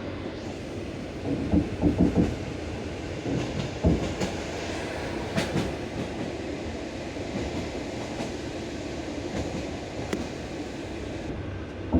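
Railway carriage wheels rolling over jointed (bolted-rail) track with a steady rumble, clattering over the rail joints: a group of knocks a little over a second in and another near four seconds, then steadier rolling.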